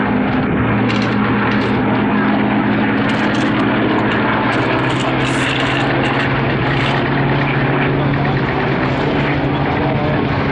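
Propeller aircraft engine droning steadily, its pitch shifting slightly a couple of times, over a constant rush of noise.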